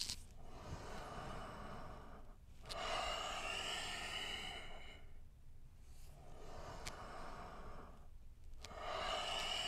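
A man breathing deeply and audibly through a stretch: four long breaths of about two seconds each, with short pauses between them.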